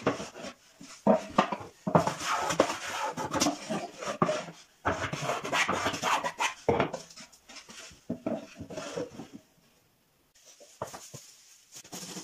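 Hand woodworking: a hand plane shaving a small wooden part in a run of strokes through the middle, mixed with knocks and rubs of wooden parts being handled. After that it turns to quieter rubbing, with a brief pause about ten seconds in.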